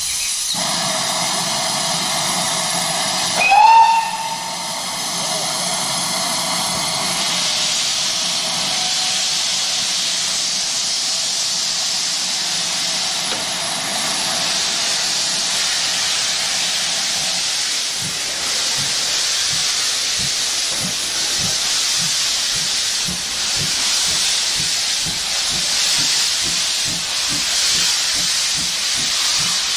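Steam locomotive hissing steadily, with one short, loud whistle that rises in pitch about three and a half seconds in. Later a regular low beat sets in under the hiss.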